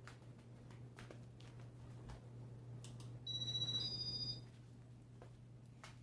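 A short electronic two-tone chirp, about a second long and stepping up in pitch, a little over three seconds in, over a low steady hum and a few faint clicks.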